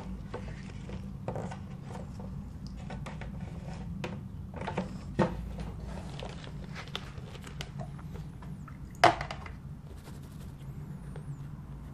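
Light clicks and knocks of a painting board and its bulldog clips being handled and set on a wooden easel, with a few sharper clicks, the loudest about nine seconds in, over a steady low hum.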